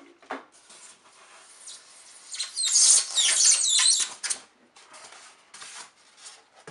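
A tight white packing insert squeaking and scraping as it is pulled off the camera in its box. The loudest squeal lasts about two seconds, in the middle, with softer rustling of the packaging before and after.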